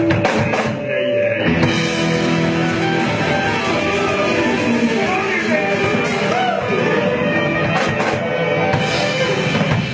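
Live jam band of electric guitars and a drum kit playing a blues in E, with drum and cymbal hits throughout: the closing bars of the song.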